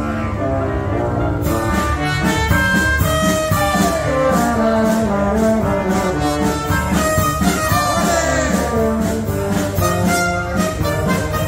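Military wind band playing a pasodoble live: a brass melody over clarinets and saxophones, with regular drum kit beats and a couple of sliding notes in the middle.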